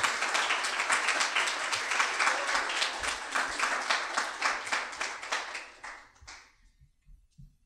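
Audience applauding with many hands clapping, dying away about six seconds in.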